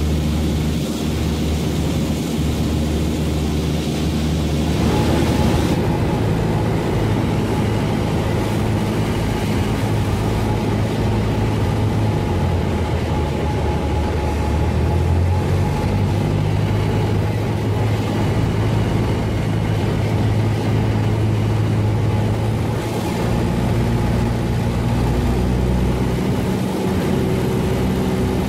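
Light propeller aircraft's engine and propeller droning steadily, heard inside the cabin on final approach. The engine note shifts in pitch about five seconds in and again a few times later.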